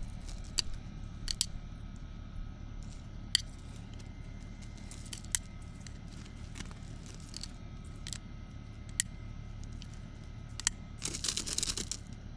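Scattered sharp snaps and crackles of plant stems and leaves being pulled and handled, with a short burst of rustling foliage near the end.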